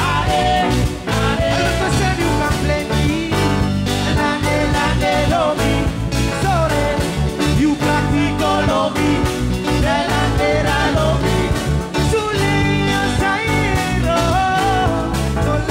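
Live band music with a man singing lead vocals over a drum kit and band, loud and continuous.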